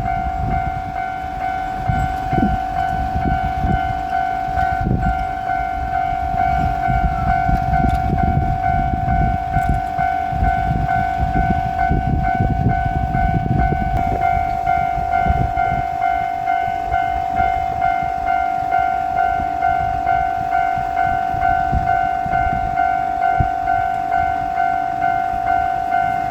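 Japanese level-crossing warning bell ringing steadily in a repeated 'kan-kan', about two strikes a second. Through the first half a diesel railcar, Tosa Kuroshio Railway 9640-4, rumbles over the crossing, its wheels clattering; the rumble then fades and the bell rings on alone.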